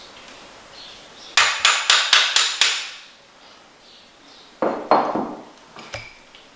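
Quick run of about eight sharp metallic knocks, roughly six a second, then two more ringing knocks and a light click: metal tool and parts knocking against a motorcycle fork's damper cartridge during bleeding.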